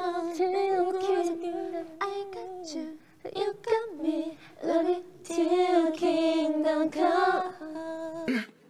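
Women's voices singing a slow tune in long held notes with short breaks between phrases; it stops shortly before the end.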